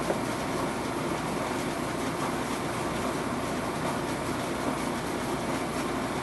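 Steady background noise, an even hum and hiss with no distinct events.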